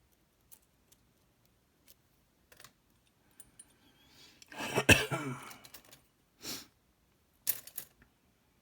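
Light metallic clicks and scrapes of lock picks and a tension wrench working inside a Lockman Megacross SP lock, with a louder rattling burst and a sharp click about five seconds in.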